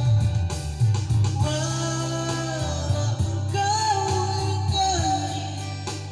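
A man singing into a microphone over a Yamaha electronic keyboard's accompaniment, with a steady bass line and beat.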